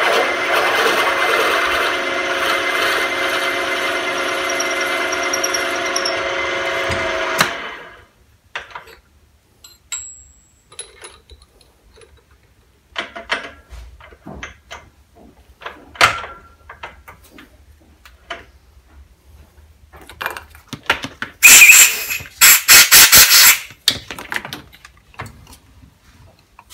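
Mill-drill running steadily with a whine and hum while drilling a handle held in the machine vise; the motor is switched off about seven seconds in and quickly runs down. After that come scattered clicks and knocks of handling the work, with a loud scraping rattle about two-thirds of the way through.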